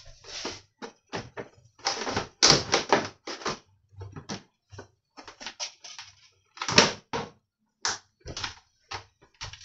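Irregular clicks and knocks of hard plastic as the upper housing of an Imusa air fryer is worked down onto its base. It is a tight press fit, jiggled back and front until it seats.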